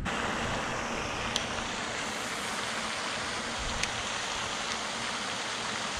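A steady, even rushing hiss with no voice in it, broken only by a couple of faint ticks.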